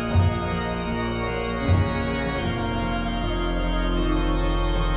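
Background music of long held organ-like chords, with two low beats in the first two seconds.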